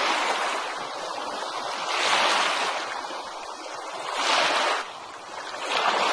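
Ocean surf breaking and washing up on a beach: a hiss of water that swells and fades, with a surge about every two seconds.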